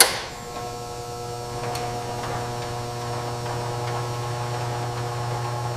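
A sharp click, then a steady low hum with several held higher tones.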